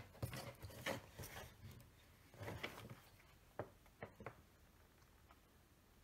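Faint, scattered clicks and light handling noise from a small mechanical keyboard being picked over, with a few sharper clicks a little past halfway.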